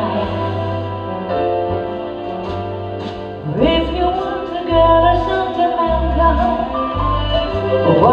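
A woman singing long held notes with a live orchestra, strings and low bass notes underneath, with a sliding rise in pitch about three and a half seconds in.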